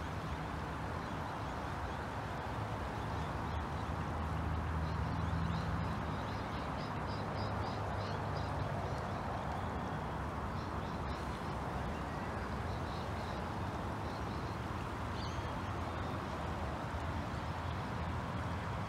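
Steady rushing noise of the flooded river's fast-flowing water, with a low rumble underneath. Birds call in quick runs of short high notes, from about four seconds in and again around ten to fourteen seconds.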